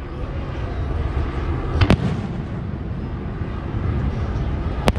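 Aerial fireworks shells bursting: two sharp bangs, the first about two seconds in and the second near the end, over a steady low rumble.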